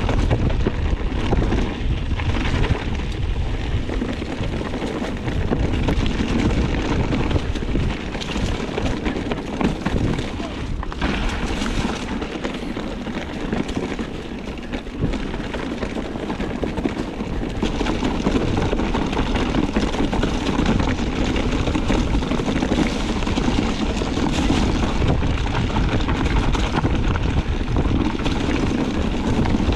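Strong wind buffeting the microphone: a constant low rumble with a rushing hiss over it, without a break.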